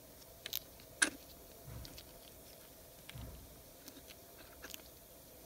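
Gloved fingertip packing mechanical grease into an air drill's gear housing: faint wet squishing with a few light clicks, the sharpest about a second in.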